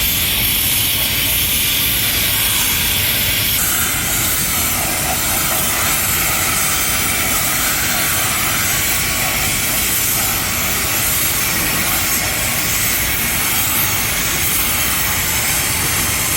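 A loud, steady hiss like rushing air. It changes tone slightly a few seconds in.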